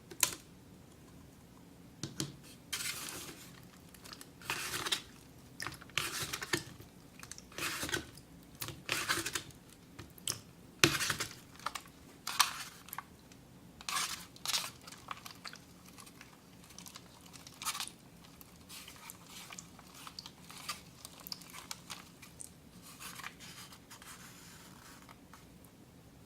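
Craft materials being handled, with irregular crinkling, scratching and tearing sounds in short strokes. They are busiest and loudest in the first half and grow fainter and sparser toward the end.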